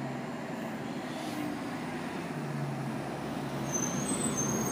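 City bus approaching and pulling up to the curb, its engine running with a steady low hum that grows louder as it nears. Short high squeals come near the end as it slows.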